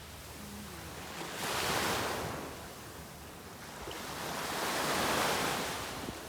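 Sea waves washing in twice, each swell rising and falling over a couple of seconds.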